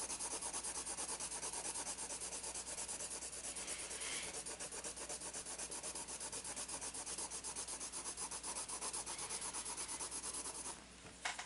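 Soft-core Derwent Coloursoft colour pencil shading on paper: steady, rapid scratching of even back-and-forth strokes, several a second. The strokes stop near the end.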